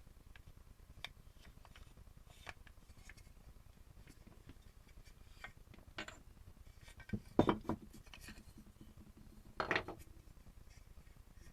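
Wooden train coupler pieces clacking together as the coupler is worked: scattered light clicks, with a louder cluster of knocks a little past halfway and another near the end.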